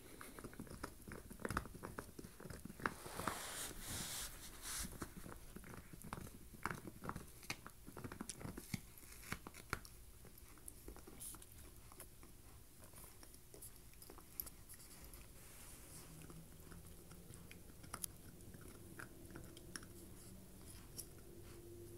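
Corgi puppy gnawing a deer antler: rapid clicks and crunches of teeth on the hard antler. They come thickly in the first half, then more sparsely.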